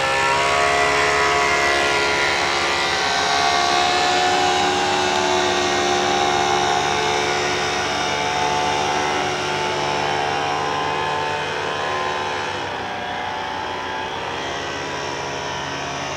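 Powered paraglider's paramotor engine droning steadily, its pitch slowly drifting up and down as it flies past. A lower steady hum underneath stops suddenly about thirteen seconds in.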